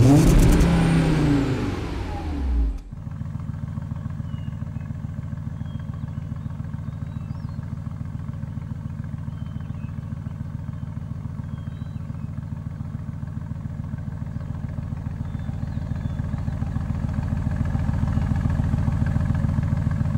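Mercedes-AMG GT3's 6.3-litre V8 running at a steady, even idle, its beat unchanging and growing a little louder near the end. Before it, for about the first three seconds, a loud sound with several falling, gliding pitches plays and cuts off abruptly.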